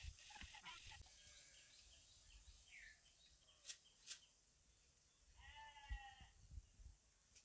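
Near silence: a faint sizzle of dal deep-frying in oil, two sharp clicks just before the middle, and a goat bleating once, briefly, a little past the middle.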